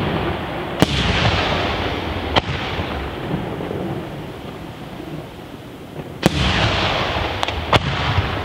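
Aerial firework shells bursting in the sky: five sharp bangs, two in the first half and three close together near the end. Between the bangs a dense crackling hiss from the burning stars and a low rolling rumble slowly fade.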